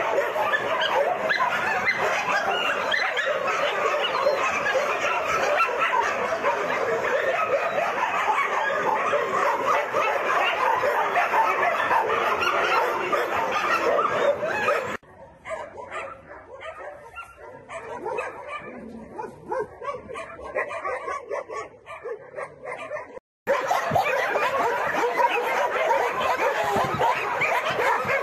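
Many dogs barking at once in a continuous din. It drops to a much quieter stretch about halfway through for some eight seconds, then comes back just as loud.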